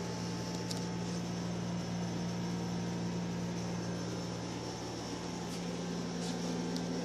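A machine's steady low hum over an even hiss, with a few faint ticks now and then.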